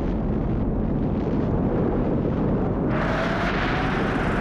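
Sound effect of a nuclear explosion: a deep, continuous rumble, joined about three seconds in by a higher rushing noise.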